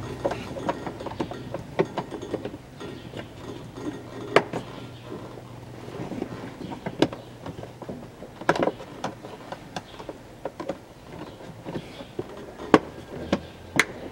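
Irregular clicks and knocks of hard plastic parts being handled under a car's dashboard: the cabin-filter cover being hooked back on and its latches clicked shut.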